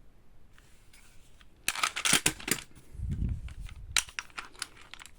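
Airsoft pistols being handled: a quick run of sharp plastic-and-metal clicks and rattles about two seconds in, a dull thud about a second later, then more scattered clicks.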